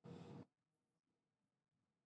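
Near silence, broken only at the very start by one abrupt burst of sound lasting about half a second that cuts off as suddenly as it began.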